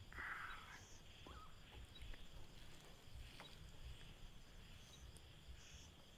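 Faint outdoor evening ambience: a steady high insect drone with a couple of short bird chirps, and a brief soft rustle right at the start.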